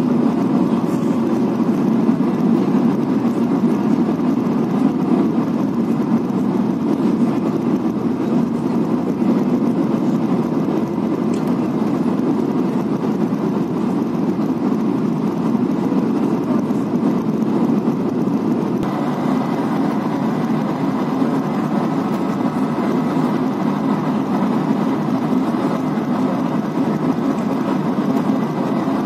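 Steady roar inside the cabin of an Airbus A220-300 on final approach, from its Pratt & Whitney geared turbofan engines and the airflow over the extended flaps. About two-thirds of the way through, the sound shifts slightly and a faint steady higher tone comes in.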